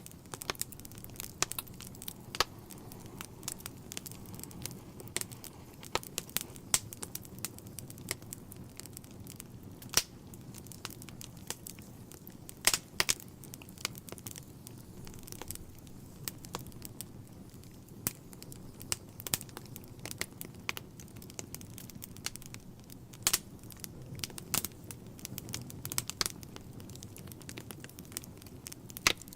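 Wood fire crackling in a fireplace: irregular sharp pops and snaps over a steady low rush of flame, with a cluster of louder pops a little before halfway.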